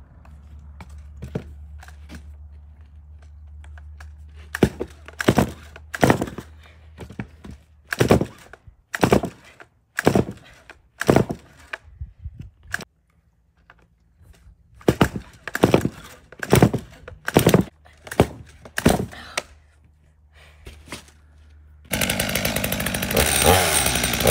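Stihl MS250 two-stroke chainsaw being pull-started: many rapid yanks of the recoil starter cord in two runs, then near the end the engine catches and runs. The saw is hard to start and kicks back on the starter rope, pulling it out of the hand.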